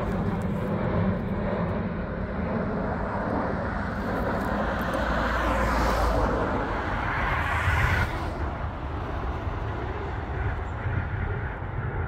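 Outdoor ambient noise with a steady low rumble. A louder, hissing swell builds from about four seconds in and cuts off suddenly about eight seconds in.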